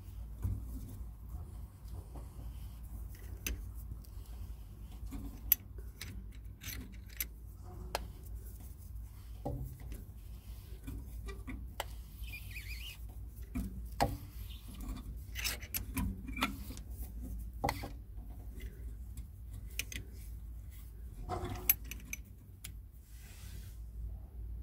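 Brake caliper piston rewind tool being wound on its threaded spindle, screwing the caliper piston back into its bore: irregular metallic clicks and scraping, with a few sharper knocks.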